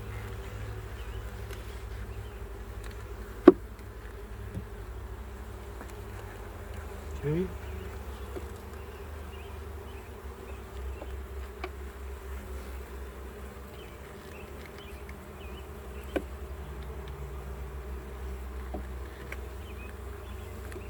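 A swarm of honeybees buzzing around an open hive in a steady hum, with a sharp knock about three and a half seconds in and a lighter one near the end.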